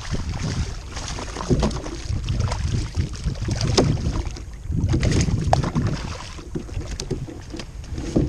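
Wind buffeting the microphone in a heavy low rumble, with splashing and a few sharp knocks as a hooked fish is pulled from the water beside a kayak and brought aboard.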